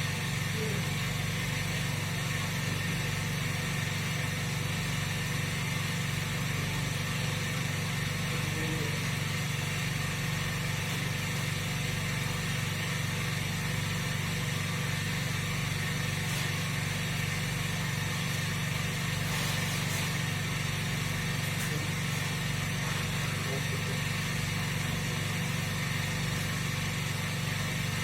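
Steady, unchanging mechanical hum.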